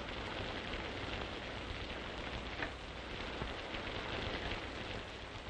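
Steady rain falling, an even hiss with a few faint clicks, heard through an old film soundtrack.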